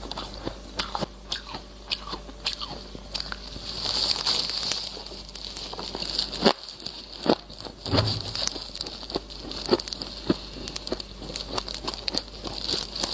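Freezer frost being bitten and chewed close to the microphone: a dense run of crisp, crackling crunches, with a couple of louder bites about six and a half and eight seconds in.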